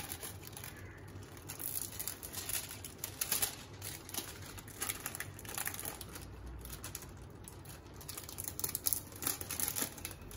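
Thin plastic film crinkling and rustling in the hands as it is peeled off a round of dough, in irregular crackles.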